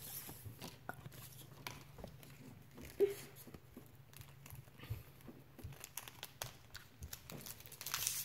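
Foil booster-pack wrapper being crinkled and torn open by hand: scattered faint rustles and clicks, getting louder near the end, over a low steady hum.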